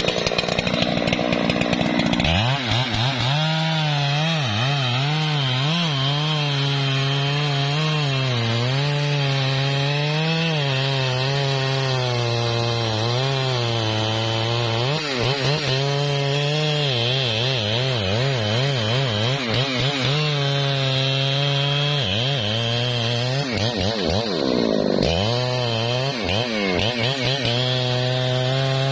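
A Husqvarna 3120 XP two-stroke chainsaw cutting into a tree trunk at full throttle. It revs freely for about two seconds, then its note drops and wavers as the chain bites into the wood under load. It dips and climbs back sharply a couple of times near the end.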